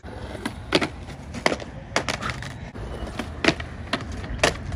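Skateboard wheels rolling on concrete, with about five sharp clacks from the board as the skater sets up and goes into a dark slide on a ledge.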